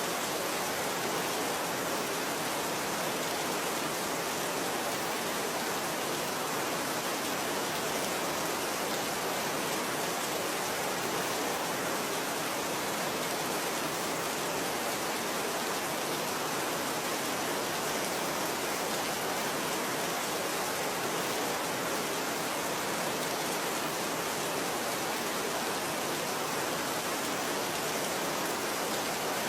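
Steady rain: an even hiss with no separate drops standing out, unchanging throughout.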